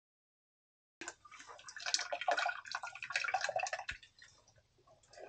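Water splashing and dripping. It starts about a second in and is busiest for the next three seconds, with a single knock just before it dies down to a few faint drips.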